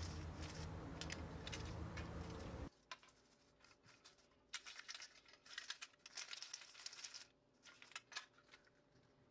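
Dry crumbs of cornelian cherry tarhana being shaken and rubbed by hand through a metal sieve, giving a faint rustling scrape with small clicks in bouts. A low steady hum underneath cuts off suddenly about two and a half seconds in.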